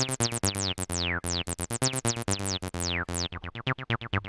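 Korg Electribe EMX synth playing a fast, repeating TB-303-style acid bassline. Each note has a resonant filter sweep falling in pitch, and about three seconds in the sweeps turn shorter and lower as the filter closes further.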